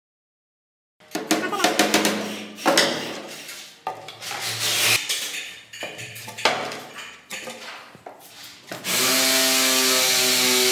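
Irregular knocks, taps and scraping as laminated chipboard panels are handled on a hard floor. Near the end a power tool's motor starts and runs at a steady speed with a constant whine.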